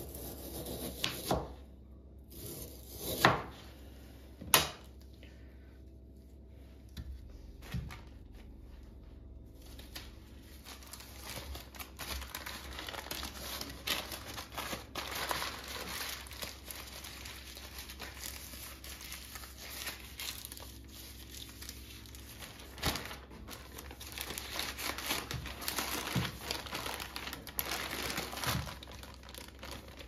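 A few sharp knife knocks on a plastic cutting board as a raw, marinated chicken döner roll is sliced. Then a long run of plastic wrap crinkling and rustling as the rest of the roll is wrapped by hand.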